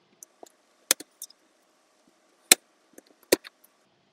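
Sharp plastic clicks and taps as a plastic trim removal tool pries at a plastic push-pin clip in a Tesla Model 3's lower dash trim panel. Three louder clicks, the loudest about two and a half seconds in, come among lighter ticks.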